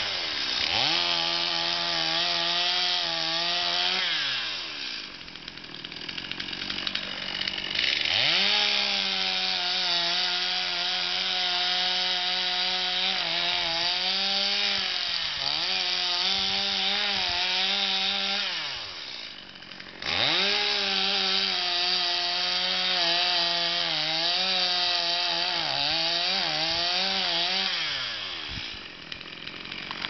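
Two-stroke gas chainsaw running at full throttle and cutting into a tree trunk in three long runs, its pitch sagging and wavering under load. The engine drops back toward idle about four seconds in, just before twenty seconds, and near the end.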